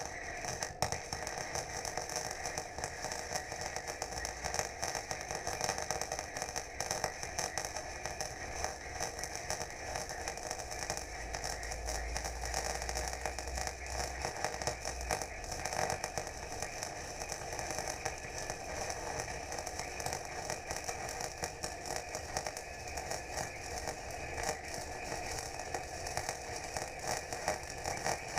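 Electric welding arc on steel crackling and sizzling steadily throughout, a long continuous weld run.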